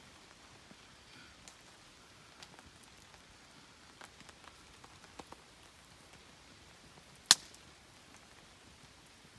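Light rain falling, a faint steady hiss with scattered single drops tapping, and one much louder sharp tap about seven seconds in.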